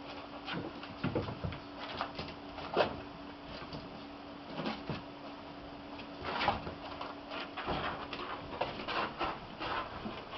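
Kittens playing: scattered taps, knocks and scuffling noises, over a steady low hum that stops about eight and a half seconds in.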